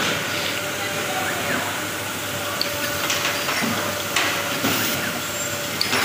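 Data cable making machine running on a factory floor: a steady mechanical hum and hiss, with a few short clicks and hissing bursts in the second half.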